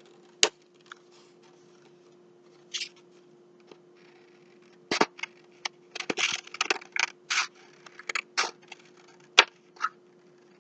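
Scissors snipping through paper in a series of irregular short cuts, busiest in the middle.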